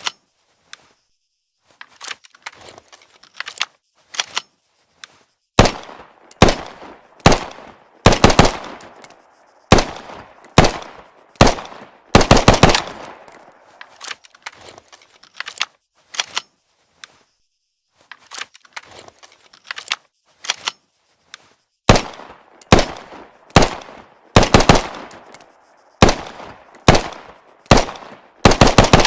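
Automatic pistol firing as a sound effect: single shots and quick bursts of several rounds, each with a short ring after it. The shots are quieter at first and again around the middle, and the loudest bursts fall in between and near the end.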